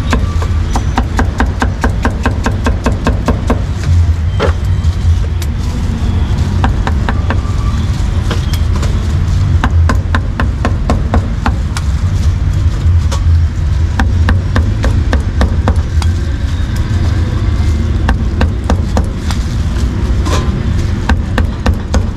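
A cleaver chopping a vegetable and cooked meat on a thick round wooden chopping board. It knocks in quick runs of about five strokes a second, over a steady low rumble.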